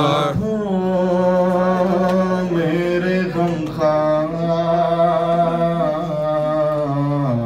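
A man chanting a noha, a Shia mourning lament, into a microphone. He sings two long, drawn-out phrases of held notes, with a brief breath between them a little before halfway.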